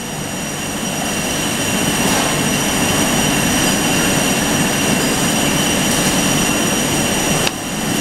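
Pin grinding machine running steadily: continuous grinding noise with a thin, steady high whine over it. It grows louder over the first two seconds and dips briefly near the end.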